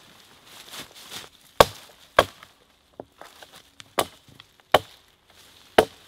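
Hatchet chopping side branches off a fallen Scots pine log: five sharp, irregularly spaced blows, with a lighter knock between them about three seconds in.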